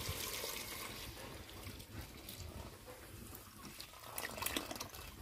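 Chicken stock being poured from a vessel into a steel pot of fried masala paste, a steady trickling pour that is loudest at first and then thins out. A few light knocks come near the end.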